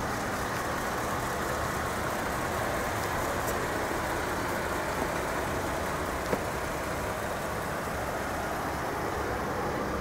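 Steady low rumble of an idling vehicle engine, unchanging in level, with a faint click about six seconds in.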